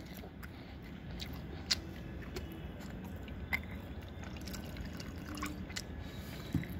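Faint, scattered wet clicks and smacks of a person eating, with a few sharper ticks, over low steady background noise.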